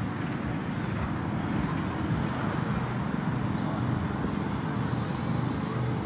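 Go-karts running around a track, a steady mechanical drone of kart engines with no breaks.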